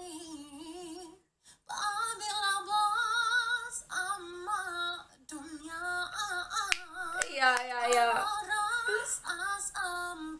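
A teenage boy singing in a high, female-sounding voice, imitating a legendary female singer. He holds long notes with a wavering vibrato, with a short break about a second in.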